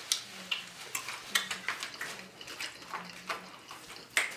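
Irregular light clicks and clatter of dishes and utensils during a meal, about two or three small knocks a second.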